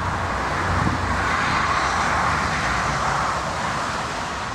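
Airbus A380 jet airliner on its landing approach: the steady rush of its jet engines and airframe close by, easing slightly near the end.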